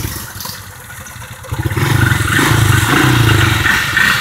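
ATV (four-wheeler) engine running close by, quieter at first, then growing loud about a second and a half in and fading again near the end.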